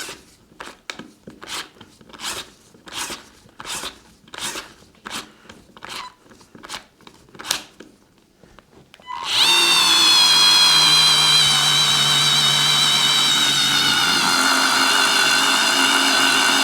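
Parkside PARS 4 A1 4-volt cordless screwdriver: a series of short clicks, roughly one every half second, as it is turned by hand on a screw, then about nine seconds in its motor starts and runs with a steady whine.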